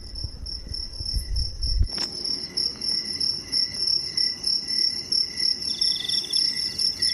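Crickets chirping in a steady night chorus of pulsing high trills, with a second, lower trill joining near the end. A low rumble under the first two seconds stops with a single sharp click.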